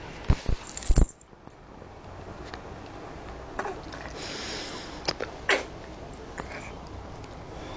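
Handling knocks from a handheld camera in the first second, then quiet breathing noises, including a short breathy sniff a little past four seconds and a few small clicks, from a baby lying on a bed.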